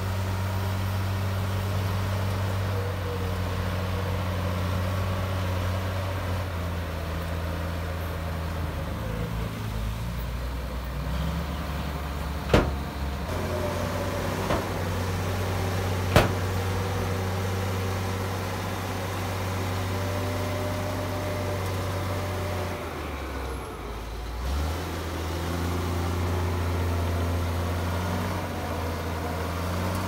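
Komatsu D53P bulldozer's diesel engine running under load in mud. Its pitch sags and recovers twice, and three sharp knocks come a little before the middle.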